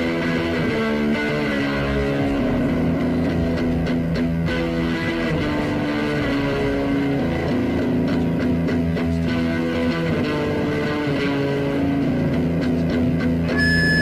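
Improvised guitar music with held notes that shift in pitch every second or so. Near the end a run of higher tones steps upward.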